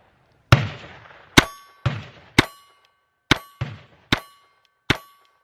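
Glock 44 .22 LR pistol fired eight times in an uneven string, the sharp cracks coming about half a second to a second apart. Several shots are followed by a lingering metallic ring.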